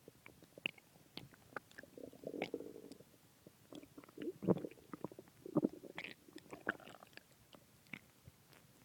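A human stomach gurgling after a heavy meal of pizza and ice cream, in irregular bubbling rumbles with small clicks and squelches. The loudest gurgles come around the middle of the stretch.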